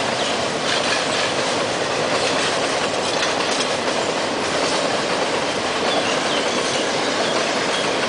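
Passenger train running along the track, heard from on board: a steady rush of wheels on the rails with some clickety-clack.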